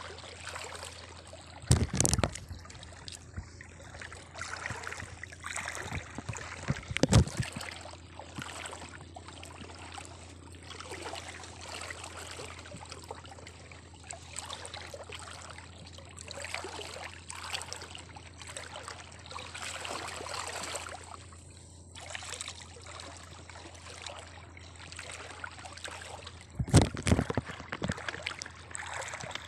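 Water splashing and trickling irregularly as people work in the water with a fishing net, with a few louder knocks: about two seconds in, about seven seconds in, and near the end.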